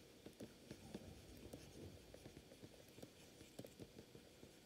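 Near silence with faint, irregular taps and scratches of a stylus writing on a pen tablet.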